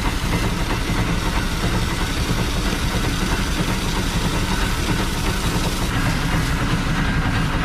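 Fire engine's pump engine running steadily, with the hiss of a fire hose jet spraying water onto boots and the wet road.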